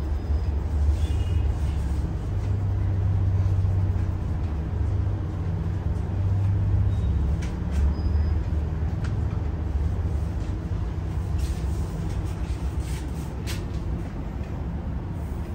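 Steady low rumble of background noise, with a few faint clicks partway through.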